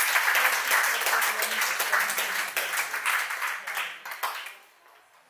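Audience applauding, a dense patter of many hands that dies away about four and a half seconds in.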